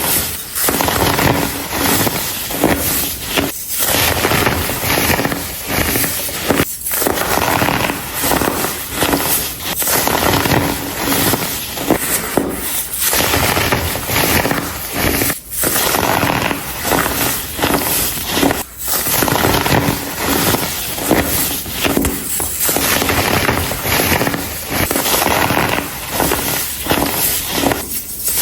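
Blocks of compressed baking soda being crushed and crumbled by hand: a dense, continuous crackling crunch, broken by a few brief pauses.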